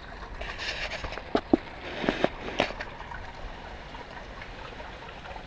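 Water trickling and splashing from a submersible pump's discharge in a swimming pool, its flow reduced with the pump slowed to about 40 Hz on a variable speed drive. A few sharp knocks between about one and three seconds in.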